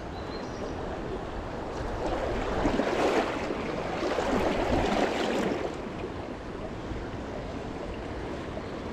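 High, fast river water rushing steadily, swelling louder for a few seconds in the middle.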